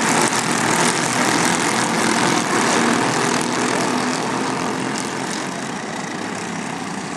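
Racing kart engine running hard at speed, with a dense rushing hiss over its note. It eases off slightly in the last couple of seconds.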